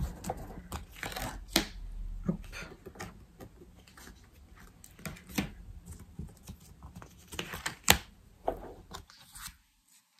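Amethyst Love oracle cards being shuffled and handled: irregular light clicks and flicks, the sharpest one about eight seconds in, then silence for the last second.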